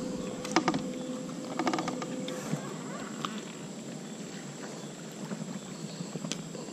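Soft clicks and rustles of hands unhooking a small bass from a hollow-body frog lure, a few short taps scattered through the first half, over faint steady background noise with a low hum that stops about two and a half seconds in.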